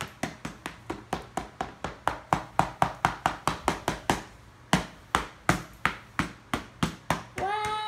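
Small metal toy hammer tapping rapidly on a slab of chocolate in a plastic tray to crack it open, about four sharp taps a second with a brief pause a little past halfway.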